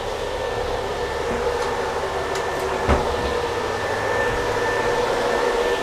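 Steady fan-like hum of an air-conditioning blower inside an armoured vehicle's cabin, with one short knock about three seconds in.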